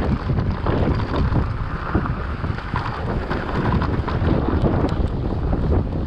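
Wind buffeting the microphone over the rolling noise of mountain bike tyres on a dirt trail, with small clicks and rattles from the bike over the bumps.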